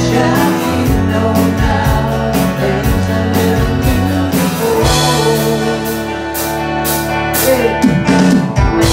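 A man singing live to two guitars strumming and picking, one a Telecaster-style electric guitar.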